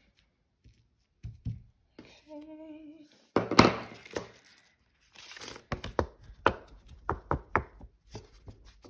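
Clear plastic stamps and their backing sheet being handled on a desk: rustling plastic with a loud click, then a quick run of sharp light clicks and knocks.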